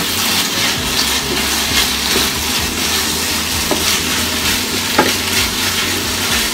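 Lion's mane mushrooms, day lily buds and wood ear fungus sizzling in a pan, stirred and scraped with a wooden spatula while a cornstarch-slurry sauce thickens. There is a sharper tap about five seconds in.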